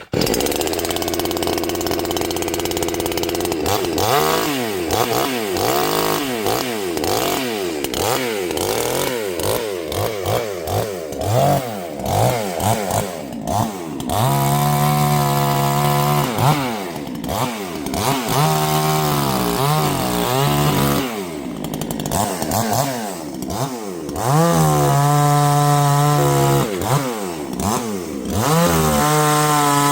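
Chainsaw running: a steady idle for the first few seconds, then revved up and down again and again, with several stretches held at high speed.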